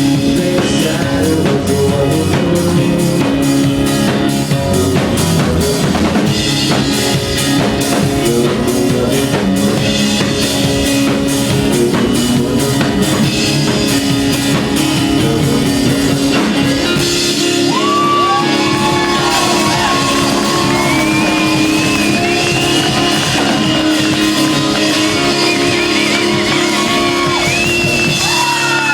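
Live rock band with upright bass and drums playing loudly. About two-thirds of the way through the drums stop, leaving a held low note under high gliding whoops and whistles from the crowd.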